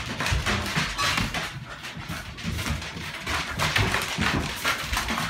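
A dog's noises mixed with irregular footsteps, knocks and scuffs on a hard floor.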